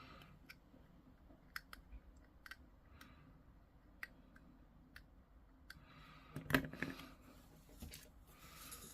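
Faint scattered clicks and light taps of small hobby tools and plastic miniature parts being handled on a work surface, with a louder cluster of knocks about six and a half seconds in.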